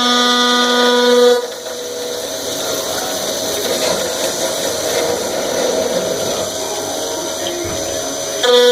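Workshop machine noise while gear rod is being worked: a steady pitched whine cuts off about a second and a half in and gives way to a rougher, noisier running sound. The whine comes back abruptly near the end.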